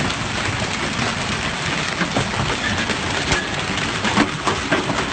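Heavy rain falling steadily, with a few sharper drop hits here and there.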